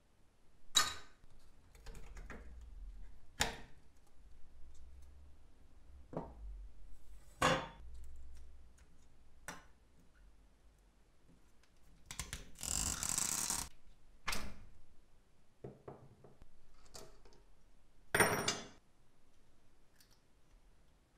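Small metal parts of a toy car being taken apart by hand: scattered clicks and knocks of sheet-metal pieces and axle parts, with a longer scraping rub about twelve seconds in.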